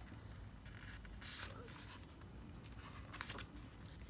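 Faint rustle of an album booklet's paper pages being handled and turned, in two short bursts: a little past a second in and again around three seconds in.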